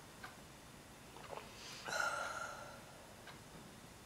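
A person gives one short, sharp breathy exhale after a swallow of liquor, about two seconds in, with a few faint clicks of glass and crockery on the table.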